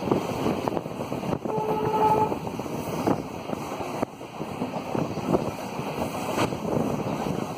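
Passenger train hauled by a WDM3D diesel locomotive, running at speed and heard from an open coach window: a steady rumbling run with wind buffeting the microphone. A brief, faint steady tone sounds about a second and a half in.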